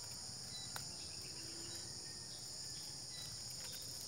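Steady high-pitched chirring of an insect chorus, with one faint click just under a second in.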